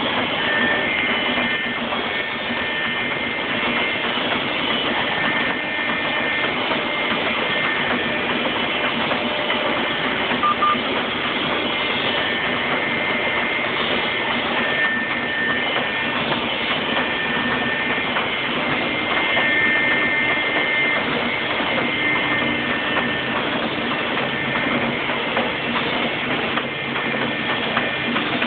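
Heidelberg Speedmaster SM 102 sheetfed offset press, with four printing units and a coating unit, running steadily: a dense, even mechanical clatter with a few faint high tones on top.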